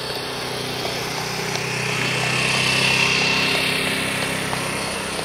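Engine noise, a steady motor hum that swells to its loudest about three seconds in and then fades away.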